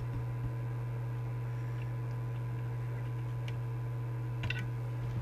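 Steady low electrical hum from the bench setup, with a few faint, scattered ticks.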